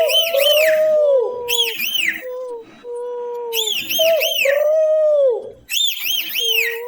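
A person imitating forest birds: quick clusters of three or four high arching chirps come every second or two over low, drawn-out dove-like coos.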